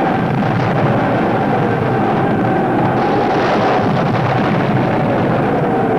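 Continuous film battle din of artillery fire and shell explosions, with a few slowly falling whistles of incoming shells over the steady roar.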